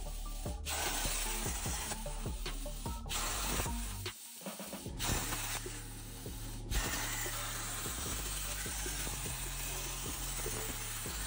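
Plasma torch of a Unimig Razor Cut 45 on an Arcdroid CNC cutting sheet steel, a loud steady hiss of arc and air. The hiss stops and restarts a few times in the first five seconds as the torch moves between cuts, then runs on steadily. Background music with a steady beat plays underneath.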